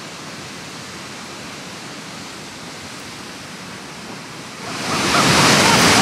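The Krimml Waterfalls rushing. A steady, distant hiss of falling water jumps sharply, about four and a half seconds in, to a loud, full rush of water and spray close by.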